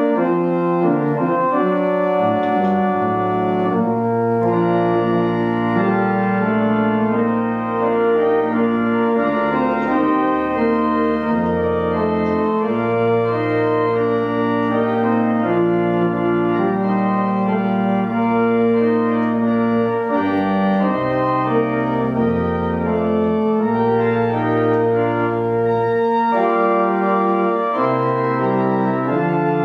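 Organ prelude played on a two-manual organ: sustained chords on the keyboards over long held bass notes that shift every few seconds.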